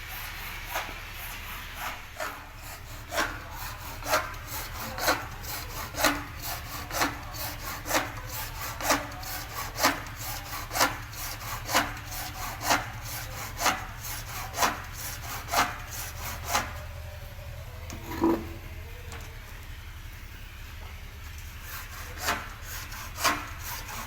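Rhythmic scraping or rubbing strokes, about one a second, each with a sharp click. They pause for several seconds past the middle, then start again near the end.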